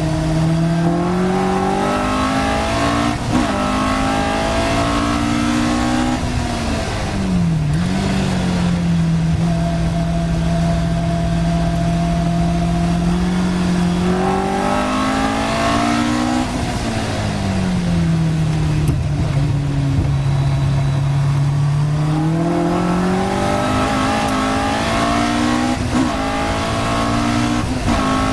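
Caterham Seven race car's four-cylinder engine heard from the open cockpit, with wind noise, under racing load: the pitch falls and rises through corners, holds steady for several seconds at a time, then climbs hard near the end with quick paddle-shift upshifts.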